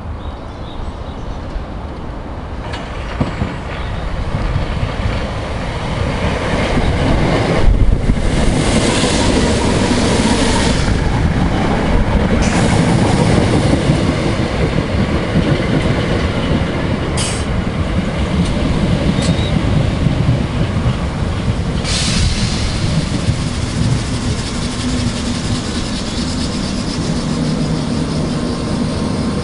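Electric multiple-unit train running past on the rails, getting louder over the first few seconds and then staying loud, with wheel clatter. A few short, sharp sounds cut through the running noise in the middle part.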